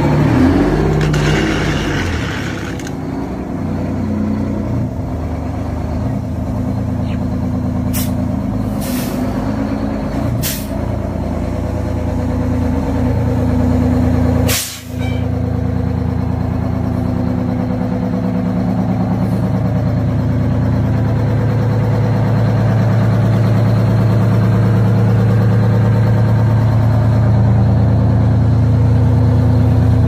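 Heavy diesel truck engine idling steadily, with a few short, sharp hisses of air about a third to halfway through and a brief dropout near the middle.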